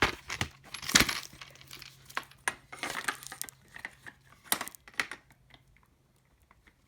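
Quick-release hanger from a Hyper Tough snap rail being clipped onto the rail and handled: a series of sharp plastic-and-metal clicks and clanks, loudest about a second in, dying away near the end. It is a test of whether the connector, its metal tab bent down, now snaps into place.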